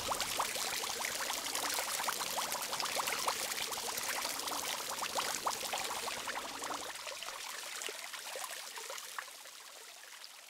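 Gas bubbles fizzing up through the water of a small electrolyser's storage cylinders: a dense crackle of fine ticks and hiss that thins out and fades over the last few seconds.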